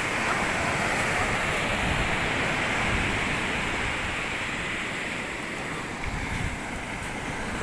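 Ocean surf breaking and washing up onto a sandy beach, a steady rush of waves.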